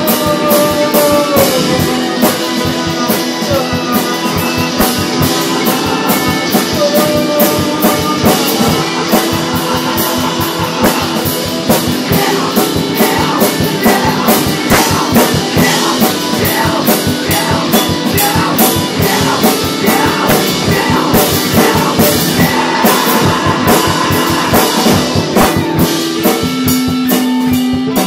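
Rock band playing: electric guitar over a drum kit beating a steady, fast rhythm.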